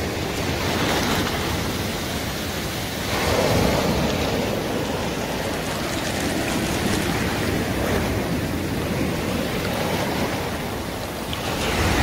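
Sea surf breaking close by and washing up the beach as foam, a constant rush that swells louder about three seconds in.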